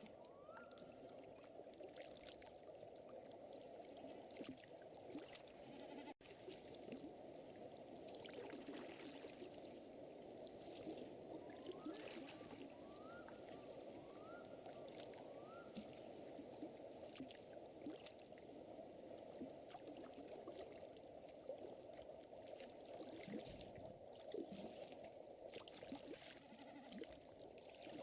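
Faint lakeside ambience: a steady lapping, trickling water sound with the sparse sharp crackles of a wood fire. A few short rising chirps come in quick succession near the middle.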